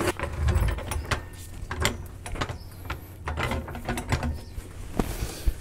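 Hand tools clicking and clanking irregularly on a minivan's front suspension, with a low thump about half a second in and sharper knocks near the end.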